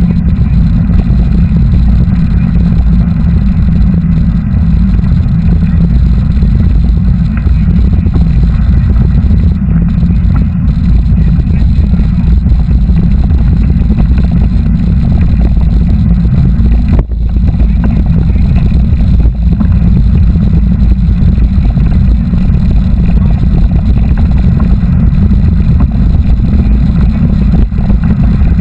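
Steady, loud wind rumble on the microphone of a moving mountain bike ride, with one brief dip about 17 seconds in.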